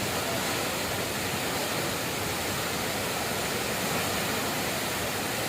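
Waterfall: falling water rushing in a steady, even wash of noise.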